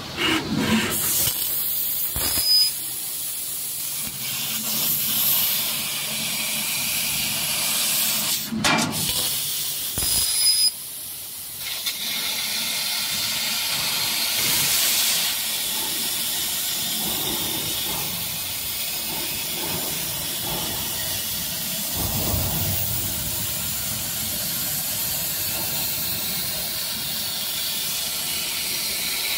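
Fiber laser cutting head hissing steadily as the 3 kW laser and its assist-gas jet cut through 18 mm carbon steel plate. A few sharp clicks come in the first third, and the hiss drops out for about a second around a third of the way through before resuming.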